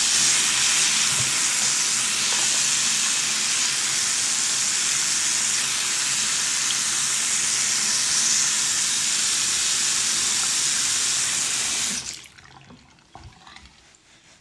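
Sink tap running in a steady stream, shut off suddenly about twelve seconds in.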